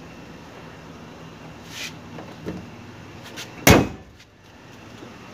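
Bonnet of a Maruti Suzuki Alto K10 slammed shut: one loud bang about three and a half seconds in, after a couple of lighter knocks.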